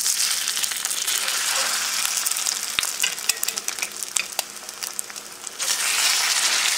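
Hot vegetable oil in a cast-iron skillet sizzling and crackling as salmon patties are laid in to fry. The sizzle flares up at once as the first patty goes in, eases a little, and flares again a little over five seconds in as a second patty is added.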